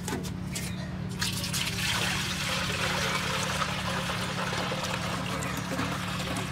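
Fresh date palm juice poured from a pitcher through a plastic strainer into a large aluminium pot, splashing and trickling steadily. The pour grows fuller about a second in.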